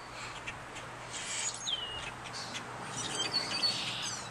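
A flock of birds, which the recorder thinks are starlings, calling noisily: high whistles and clicks, with a falling whistle about two seconds in.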